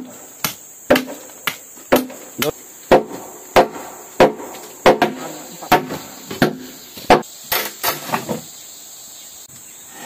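A tool striking wood, about fourteen blows at roughly two a second, that stop shortly before the end. Insects chirr steadily in the background.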